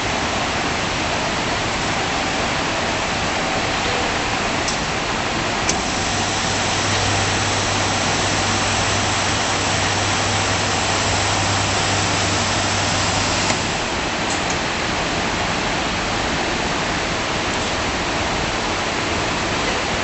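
Fully automatic CNC bandsaw machine running: a steady, noisy whir, with an added low hum and a higher hiss from about six seconds in that stop about thirteen and a half seconds in.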